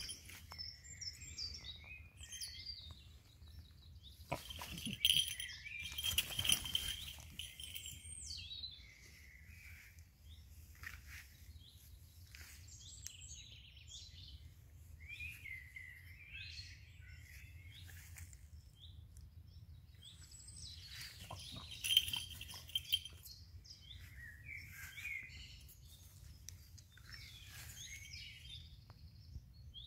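Small birds chirping and singing in the background, many short rising and falling calls, over a low steady rumble. Louder noisy bursts come twice, about five seconds in and again past twenty seconds.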